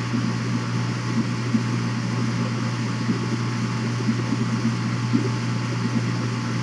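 Steady low mechanical hum under an even hiss.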